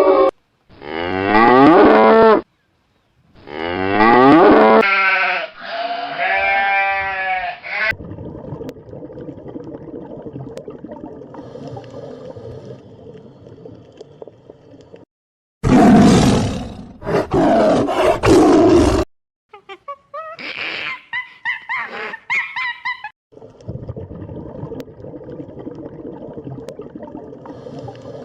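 A series of short animal-call clips cut one after another, among them cows mooing in long pitched calls, with stretches of steady background noise between the calls.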